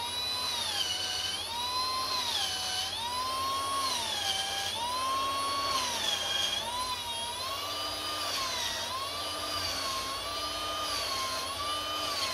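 Handheld electric drill spinning a chamfering bit, breaking the edges of the holes in a cast iron A-series cylinder head. Its motor whine repeatedly sags and climbs back in pitch, about every one and a half seconds, as the bit is worked into hole after hole.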